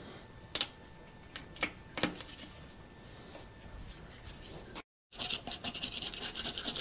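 A few scattered sharp clicks, then about five seconds in a rapid, steady scraping: a hand scraper working old gasket material off the metal flange of a Caterpillar D4 bulldozer's steering clutch compartment.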